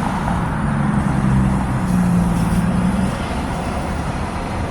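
Steady road-vehicle noise, a low rumble, with a motor vehicle's engine humming at a steady pitch from about half a second in until about three seconds in.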